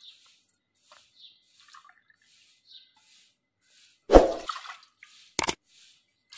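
Water from a small cup splashing into an aluminium pot, with faint drips at first and one short, louder splash about four seconds in. A sharp click follows near the end.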